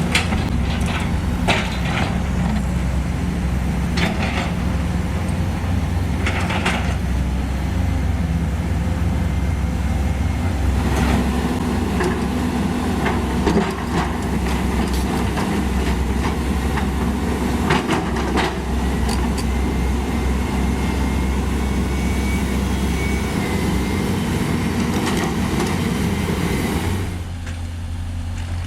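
Heavy diesel earthmoving machine engine running under load with scattered metallic clanks, easing down to idle near the end.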